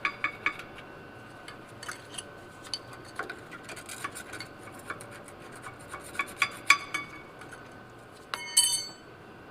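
Metal tools and parts clinking and knocking in scattered strikes, with a clear ringing metallic clink about eight and a half seconds in.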